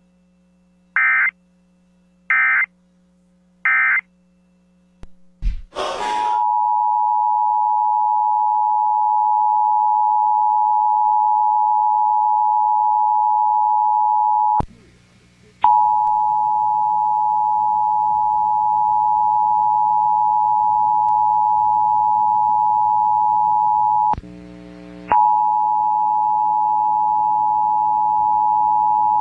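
Three short bursts of Emergency Alert System digital data tones, the end-of-message code, then the EAS two-tone attention signal (853 and 960 Hz sounded together), a steady loud tone. The attention signal breaks off for about a second twice and resumes.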